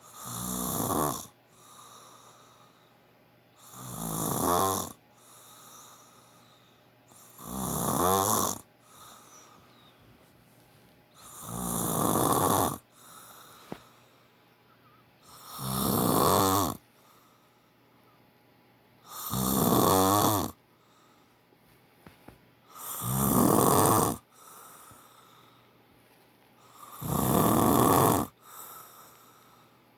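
A man snoring loud while asleep: eight snores, one about every four seconds. Each snore swells for about a second and then cuts off sharply, with a faint, softer breath between snores.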